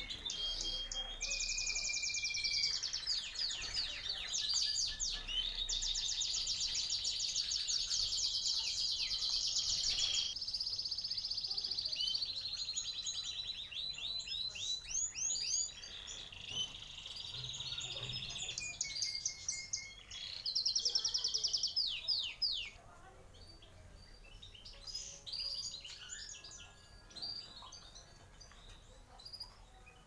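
Canary song: long, fast trills and rolls of repeated notes, with a few held whistled notes. About 23 seconds in the song stops, leaving only scattered short chirps.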